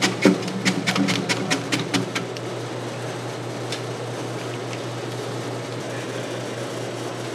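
Taro slicing machine cutting whole taro and dropping the thick slices into a mesh basket: quick sharp knocks about four or five a second that stop about two seconds in, leaving a steady machine hum.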